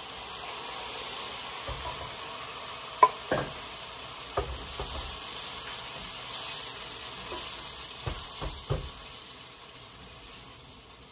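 Crushed tomatoes sizzling in a hot pan of onions and garlic sautéing in oil, stirred with a wooden spoon that knocks against the pan now and then. The sizzle eases a little near the end.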